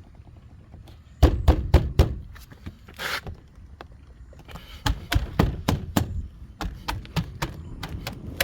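A refitted Chevrolet Camaro interior door panel being tapped by hand to make sure it sits tight. There are four quick, sharp knocks a little over a second in, then a run of lighter taps from about halfway on.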